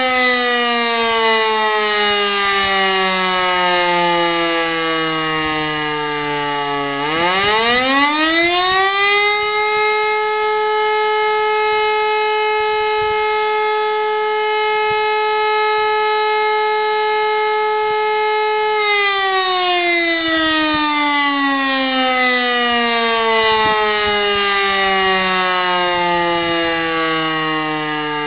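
E57 electric motor siren sounding the "Feueralarm" fire-alarm test signal. Its falling wail winds down, then about seven seconds in the rotor spins up into a steady, held tone for roughly ten seconds, and it winds down again in a long falling wail.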